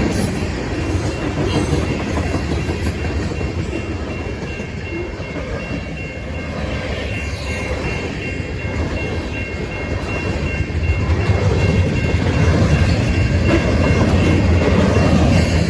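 Freight train rolling past, its wheels clacking over rail joints, with a faint steady high squeal; it grows louder in the last few seconds.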